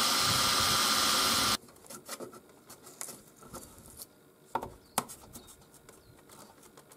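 Small handheld rotary tool running steadily at high speed as its thin bit cuts a hole into a glass-cloth-skinned foam model wing, stopping abruptly about a second and a half in. A few light taps and scrapes follow.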